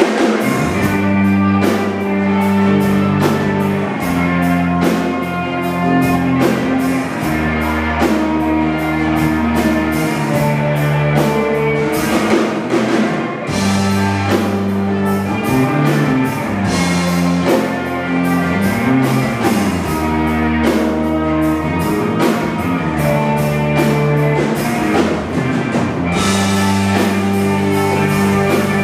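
Live rock band playing: electric guitar and drum kit with a steady run of drum and cymbal hits over sustained low bass notes that change pitch.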